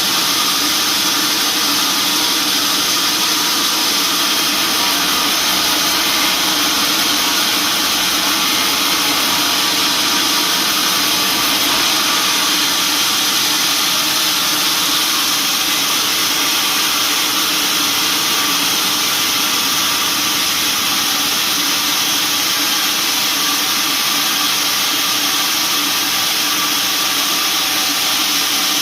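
Sawmill machinery running steadily: a continuous, even mechanical noise with no breaks or changes.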